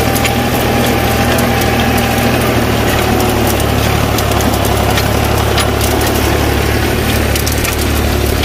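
Ford 4600 tractor engine running steadily at a low, even pace, with scattered sharp clicks and rattles over it.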